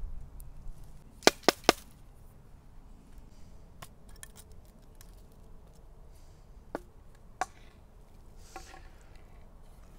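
Three quick, sharp wooden knocks about a second in, then a few fainter clicks and a soft rustle, as small items are handled and set down on a sawn wooden tree stump.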